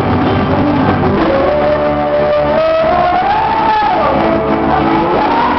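Live band music led by an electronic keyboard, loud: held chords with a melody line that slides up and down in pitch, over a drum kit.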